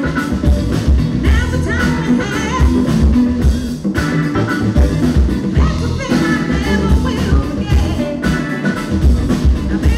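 Live rock band playing: drum kit keeping a steady beat under bass and electric guitar, with female lead vocals sung over the top.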